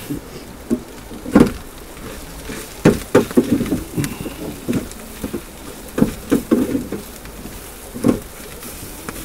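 A spatula stirring corned beef hash in a frying pan, knocking and scraping irregularly against the pan, over a faint sizzle of the hash frying.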